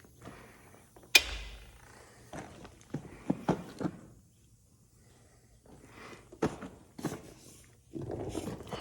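A sharp bang about a second in, then scattered knocks, thuds and shuffling steps as a heavy combine tire is worked into place against the axle.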